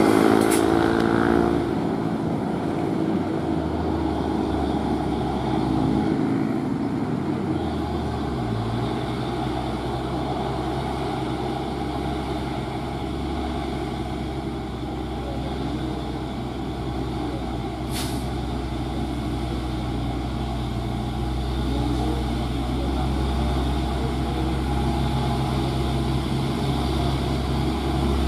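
Diesel engines of loaded Hino 500 cargo trucks running steadily as they approach, the engine note shifting higher about eight seconds in. A brief sharp hiss about two-thirds of the way through.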